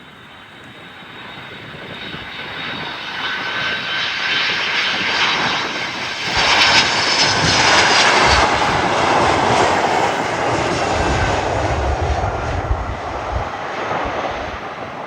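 Landing airliner's engines passing overhead: the sound grows steadily louder, is loudest about seven to ten seconds in with a high whine that slides down in pitch, then gives way to a lower rumble as the aircraft moves away.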